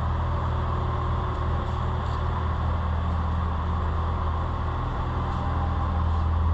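Chevrolet Corvette C7 Z06's supercharged 6.2-litre V8 idling steadily, warming up after a fresh oil change.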